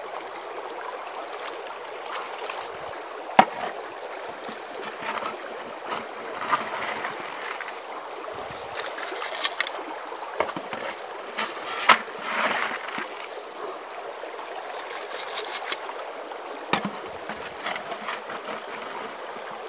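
Stream water rushing steadily through a gold sluice box and over its riffles, with a few sharp knocks, the loudest about three and a half and twelve seconds in.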